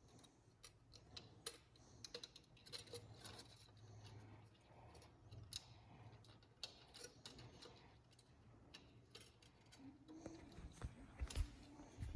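Near silence: room tone with scattered light clicks and taps, as of small objects being handled.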